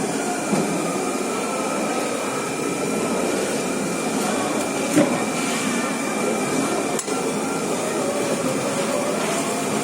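A few sharp knocks from a heavy knife chopping through a giant grouper against a cutting board, the loudest about five seconds in, over a steady background hum with a thin high tone.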